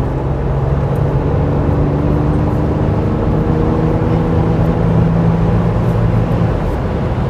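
Ford Bronco Raptor heard from inside the cabin while accelerating to highway speed. Its twin-turbo V6 engine note rises slowly over a steady road and tyre rumble.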